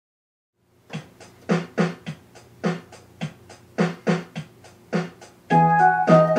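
Electronic keyboard playing. After about a second of silence comes a run of short separate notes that each die away quickly, then, about five and a half seconds in, louder held chords.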